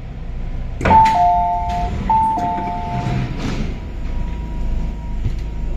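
Electronic two-note chime, a higher note stepping down to a lower one, sounded twice in a row inside a stopped MTR train car. A sharp knock comes just as the chime starts, over the car's steady background hum.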